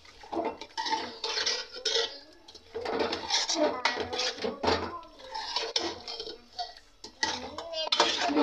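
A metal spoon scraping and knocking against the sides and bottom of a metal cooking pot in quick, irregular strokes as chicken and potatoes are stirred and fried in a thick masala.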